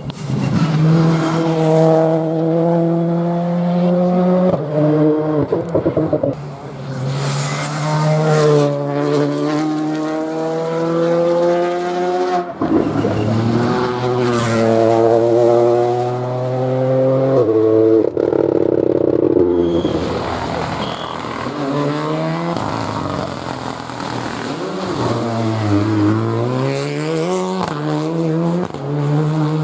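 Rally cars at full attack, several passes one after another: each engine revs hard and climbs in pitch through quick upshifts, then drops away as the driver lifts and brakes, with some tyre squeal.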